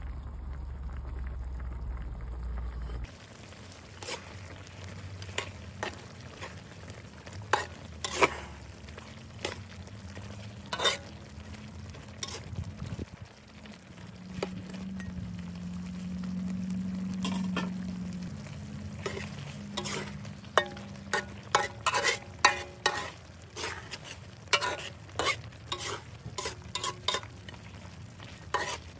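A wooden spatula stirring chicken adobo in a large aluminium wok, scraping and knocking against the metal in irregular clicks that come more often in the last several seconds, over the simmering sauce.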